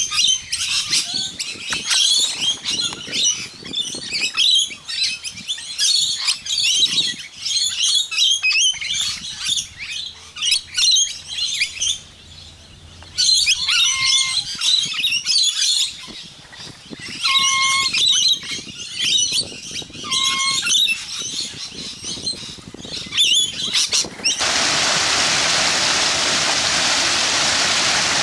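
A flock of rainbow lorikeets chattering in rapid, high-pitched calls, with a couple of short pauses. Near the end it gives way to the steady rush of a waterfall pouring into a spa pool.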